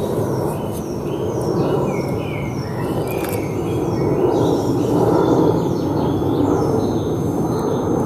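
Woodland songbirds singing, rapid series of short falling whistles, over a steady outdoor rush. A thin, steady high whine sits above them at times: the audible beep of a cheap ultrasonic mosquito repeller that is switched on.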